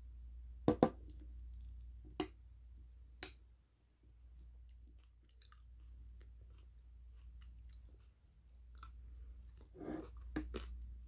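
A metal spoon clinking against a glass bowl of yogurt and blueberries while it is stirred. A few sharp clinks, the loudest pair about a second in and more near the end, with soft stirring and chewing sounds between, over a low steady hum.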